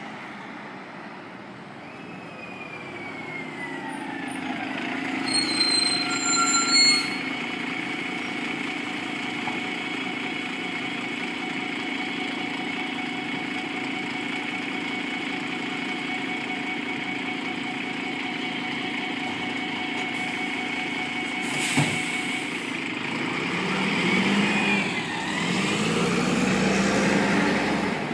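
City bus pulling in to a stop with a falling whine, then short loud hisses of air from its brakes. It idles steadily with a whine while passengers board, there is a sharp knock, and then the engine rises in pitch as the bus accelerates away.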